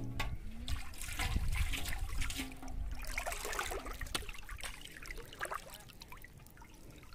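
River water sloshing and trickling around a person wading waist-deep, with small splashes. It is louder for the first few seconds, then fades.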